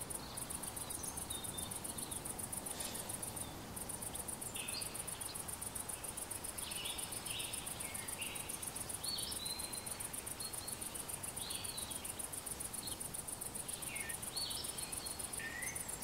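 Insects stridulating in a steady, high, evenly pulsing buzz, with short bird chirps scattered over it.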